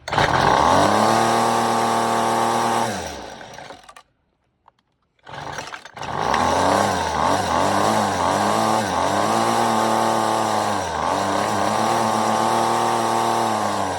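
Weed Eater FeatherLight FL26 two-stroke string trimmer engine, on a newly fitted carburetor with its idle screw being adjusted, runs for about three seconds and dies. After a short pause it starts again and runs with revs rising and falling unevenly, then dies at the end.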